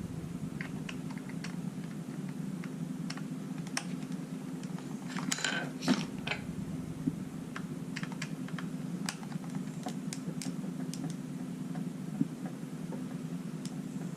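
Small screwdriver clicking and scraping on tiny screws in a plastic drone shell: scattered light ticks, with a short clustered rattle about five to six seconds in, over a steady low hum.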